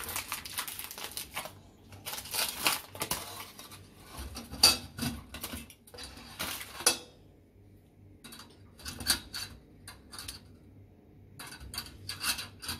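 Aluminium foil crinkling as a packet of frozen chicken wings is opened, then a wire-mesh deep-fryer basket clinking and rattling as the wings are set in it. The sounds come in irregular bursts and sharp clicks, with a short lull about two-thirds of the way through.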